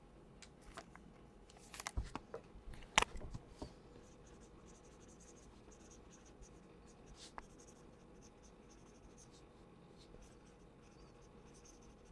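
Handling rustles and a sharp click as a card goes into its plastic sleeve, then a felt-tip marker writing on the plastic, faint high squeaky strokes with short pauses between them.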